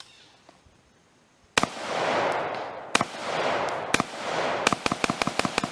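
AR-15 rifle firing: three single shots about a second apart, each with a reverberating tail, then a fast string of about eight shots in roughly a second.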